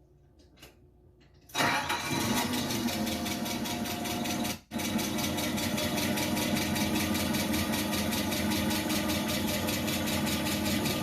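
LP-gas forklift engine of a Mitsubishi FGC25 starting about a second and a half in and settling into a steady idle, with a split-second dropout near the middle; this is the first run after a water pump replacement, to check for leaks.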